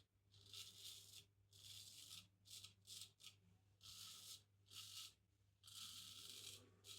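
Razor strokes scraping through lathered stubble: about ten short rasps of uneven length with brief pauses between them, over a faint steady hum.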